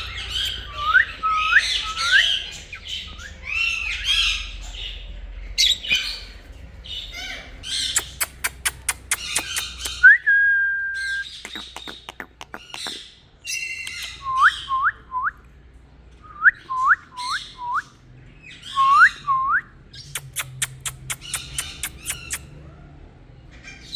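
An Indian ringneck parrot squawking and calling. Harsh squawks, runs of three or four short hooked whistles, and one held whistled note about ten seconds in are broken by two fast runs of clicks.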